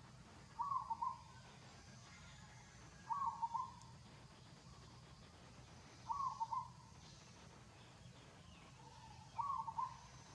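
A bird giving a short hooting call, repeated four times at even intervals about three seconds apart.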